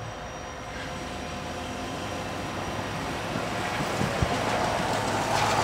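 Diesel freight locomotives approaching: a steady engine drone and rumble that grows louder throughout.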